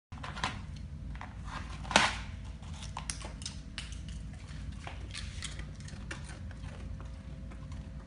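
Tortilla chips crackling and clicking in a bowl as an African grey parrot picks through them with its beak, a run of irregular sharp clicks with one louder crack about two seconds in.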